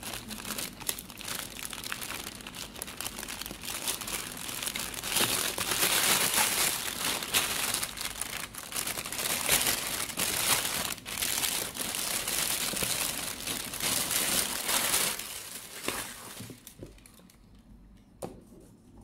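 Thin plastic carrier bag crinkling and rustling as hands pull it open and off a cardboard cake box. The crinkling is loudest through the middle and dies down about three seconds before the end, leaving a couple of light clicks.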